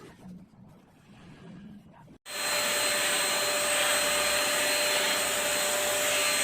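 Deerma DX700 handheld vacuum cleaner running at a steady pitch, a loud rushing noise with a fixed high whine. It cuts in abruptly about two seconds in, after a quiet stretch.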